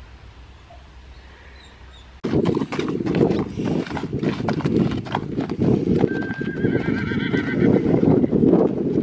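A horse's hooves clip-clopping at a walk on a hard dirt track as it is led in hand for a lameness check, starting about two seconds in, with wind rumbling on the microphone. A horse whinnies briefly, wavering, a little past halfway.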